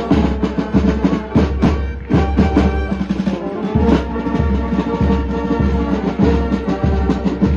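Music with drums and a pulsing bass beat.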